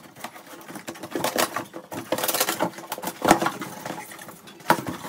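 Scissors cutting along the seam of a cardboard shipping box: a dense run of crackling scrapes and tearing, busiest in the middle, with a sharp snap about three seconds in.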